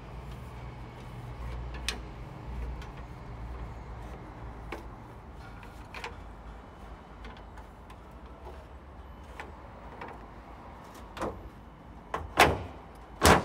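Scattered clicks and light rattles from hands working at the front grille, then two loud bangs near the end, the second the loudest, as the Land Rover Defender's bonnet is lowered and dropped shut onto its catch.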